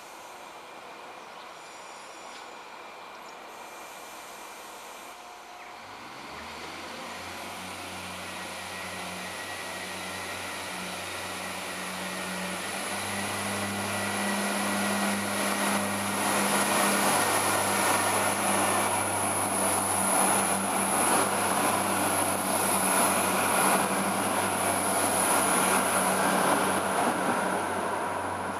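Irish Rail 22000 class diesel multiple unit running into the station: its engine hum comes in about six seconds in and swells to a loud rumble of engines and wheels on rails as the train passes close, with a steady high whine over the top. The sound eases off near the end as the train moves away.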